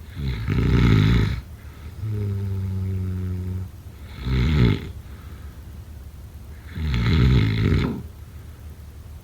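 A sleeping person snoring. There are three rattling snores, about a second in, near four and a half seconds, and around seven seconds, and a steady humming out-breath lasting over a second comes between the first two.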